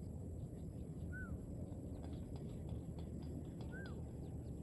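Two short, arched chirps from a bird, one about a second in and one near the end, over a steady low background hush.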